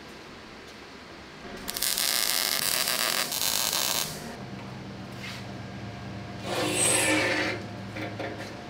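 MIG welder crackling as it lays a weld along the joint between two steel plates, for about two seconds, then stopping. A low steady hum follows, with a second, shorter noisy burst a few seconds later.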